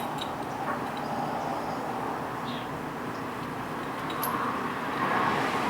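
A steady rushing background noise of unclear origin that swells a little near the end, with a few faint small clicks from reloading-die parts being handled.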